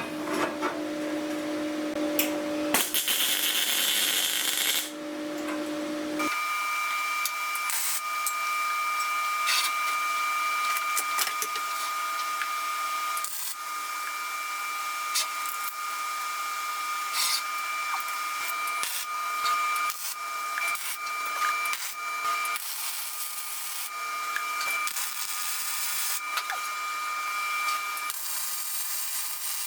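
Metal-shop tool noise while working on painted steel grates: a steady machine hum with scattered clicks and knocks, and a burst of hiss about three to five seconds in. About six seconds in, the hum jumps to a much higher pitch and stays there.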